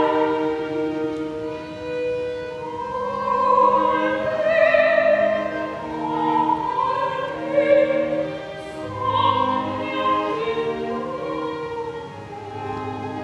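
Opera singer singing an aria in classical style over instrumental accompaniment, with long held, wavering notes.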